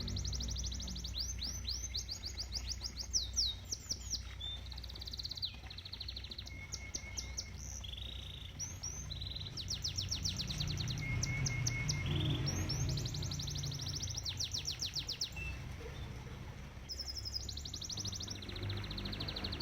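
Canary singing continuously in fast trills and rolls of rapidly repeated high notes, switching to a new phrase every second or two. Underneath runs the low, steady rush of flowing koi-pond water.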